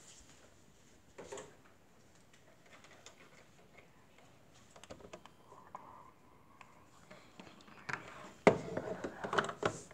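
Quiet small-room tone with a few faint ticks, then a run of light clicks and knocks near the end, one sharp knock the loudest.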